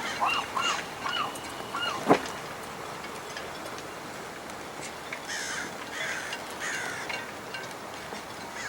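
Birds calling: a quick series of honking calls in the first second or so, a single sharp knock about two seconds in, then a few harsher, higher calls around five to seven seconds in, over a steady noise haze.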